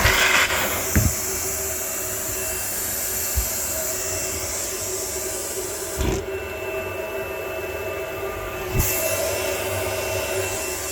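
Car wash vacuum cleaner running steadily with a whine and a high rushing hiss of air. The hiss drops away for about three seconds from roughly six seconds in, with a knock as it cuts out and another as it returns.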